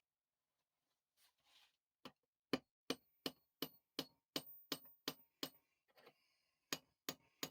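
Hammer tapping a steel split pin home through the hole in a Record vise's screw assembly: a steady run of light, ringing metal-on-metal taps, about three a second, with a brief pause near the end before the tapping resumes.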